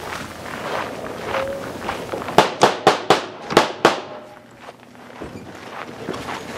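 Gunshots from a 3-gun competitor firing on a stage: a fast string of about six shots in a second and a half, in two quick groups.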